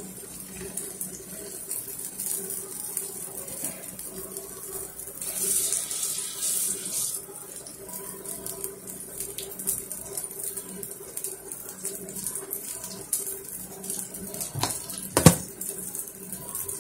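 Zucchini pancake batter sizzling and crackling in hot oil in a frying pan, with a louder stretch of hiss about five seconds in. A single sharp knock near the end.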